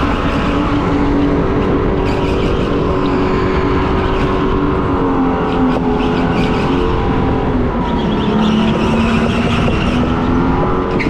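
Electric RiMO go-kart motor whining steadily over a low rumble, its pitch sagging about eight seconds in and climbing again as the kart slows and speeds up.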